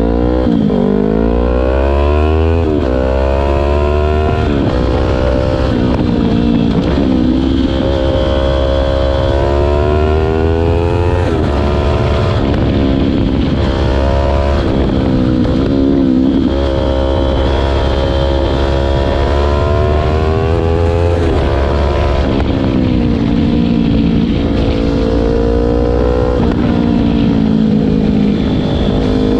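Yamaha R3 parallel-twin engine with an Akrapovic exhaust muffler, being ridden: it accelerates again and again, its pitch climbing and then dropping back at each gear change or roll-off, about eight times.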